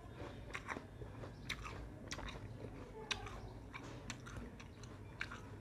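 A person biting and chewing raw apple slices, with irregular crisp crunches.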